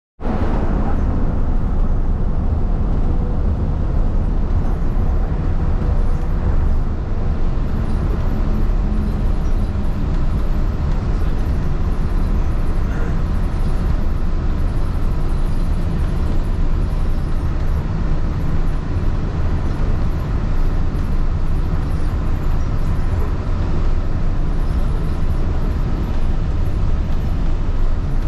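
Monorail train running along its beam, heard from inside the cabin as a steady rumble with a faint motor hum.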